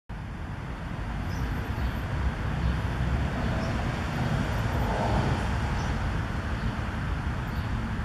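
Steady low outdoor background rumble, in the manner of distant road traffic, with a few faint high chirps.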